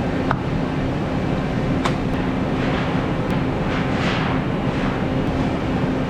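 Web offset printing press running, a steady loud mechanical drone with a constant hum, and a few sharp metallic clicks in the first two seconds as the hand wheel is worked onto its keyed shaft.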